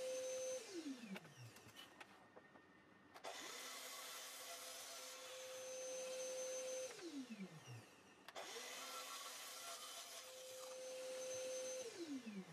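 Sliding mitre saw cutting plywood. The motor starts suddenly and runs with a steady whine while the blade goes through the wood, then winds down with a falling whine once the trigger is let go. A wind-down comes just after the start, then two more start, cut and wind-down cycles about five seconds apart.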